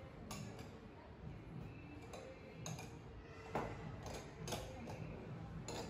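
Small glass bowls clinking and knocking as they are picked up and set down on a counter: about half a dozen separate sharp clicks, the loudest about three and a half seconds in.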